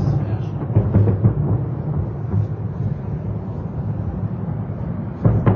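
Distant aerial fireworks bursting: a string of deep booms over a continuous rolling rumble, with several in quick succession about a second in and a louder boom near the end.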